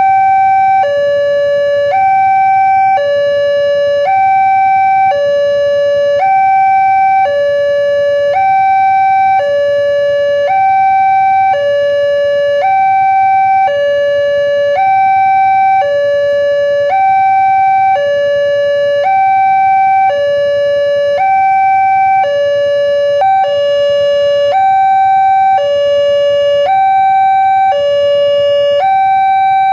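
Railway level-crossing warning siren sounding a loud electronic two-tone hi-lo alarm, switching between a higher and a lower tone about once a second without a break.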